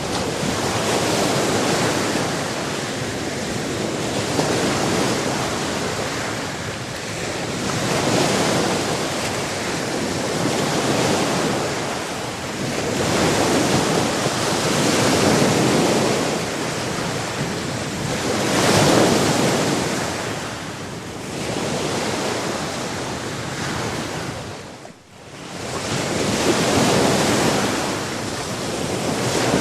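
Sea surf: waves breaking and washing in a continuous rush that swells and ebbs every few seconds. The rush drops away sharply for a moment about 25 seconds in.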